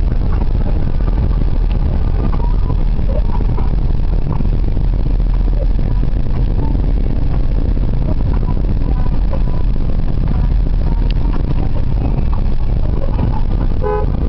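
Car cabin noise while driving on a wet road in heavy rain: a steady low rumble of engine and tyres.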